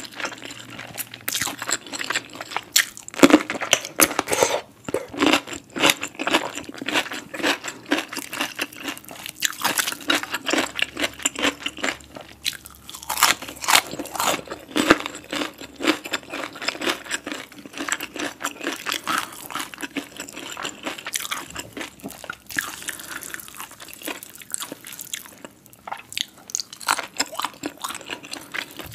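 Close-miked biting and chewing of crispy fried chicken, its crust crunching in a dense, irregular run of crackles.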